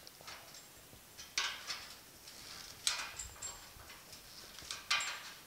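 Steel parallel-jaw pliers working a bent sheet-metal grille bar, making a few short, faint scraping sounds spread over several seconds.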